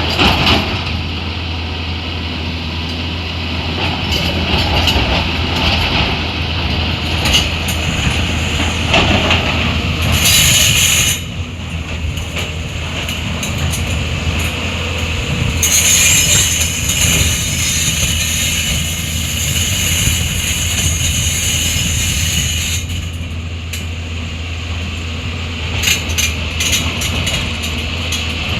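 Heavy diesel machinery, such as an excavator, running steadily with metallic clatter and rattling. A brighter hissing noise rises briefly about ten seconds in and again for several seconds in the second half.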